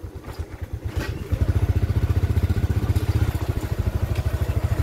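An engine running with a fast, even pulse, growing louder about a second in and then holding steady.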